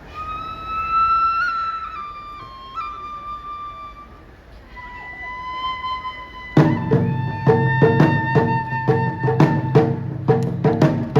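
Japanese bamboo flute (fue) playing a slow solo melody of held notes. About six and a half seconds in, taiko drums come in with steady, even strikes about three a second, while the flute holds a note over them.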